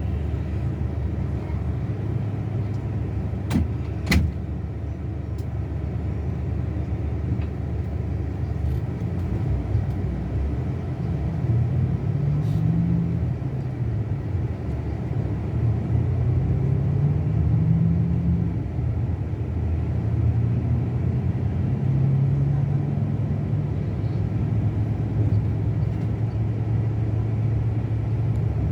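Scania K360 bus engine running steadily under way. In the second half its note rises and falls several times. There are two sharp clicks about four seconds in.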